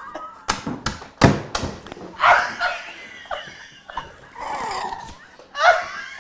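About four sharp slaps on a table in the first two seconds, then people laughing in breathy, wheezing bursts.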